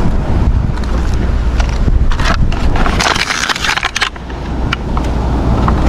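Strong wind buffeting the microphone, a steady low rumble, with two brief louder noises about two and three seconds in.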